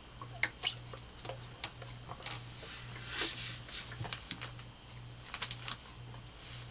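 A toddler sucking and swallowing milk from a baby bottle: faint, scattered wet clicks and smacks from the nipple and mouth, with a soft breathy hiss about three seconds in, over a faint low hum.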